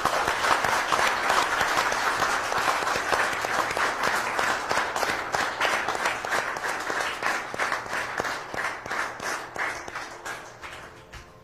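Audience applauding, a dense patter of many hands clapping that dies away over the last two or three seconds.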